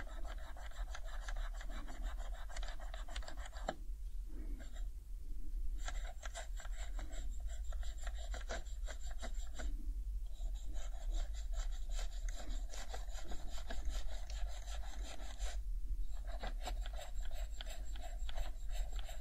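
Alcohol pad scrubbing the plastic keycaps of an HHKB Professional 2 keyboard in quick back-and-forth strokes. The rubbing comes in four spells, with a pause of about two seconds after the first and brief breaks before the last two.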